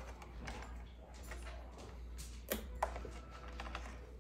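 Scattered small clicks and taps of hand tools on a guitar amplifier's chassis during disassembly, with two sharper clicks about two and a half seconds in, over a low steady hum.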